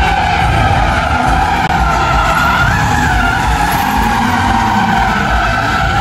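Stunt cars drifting in circles, engines running hard and tyres skidding with a wavering squeal that rises and falls.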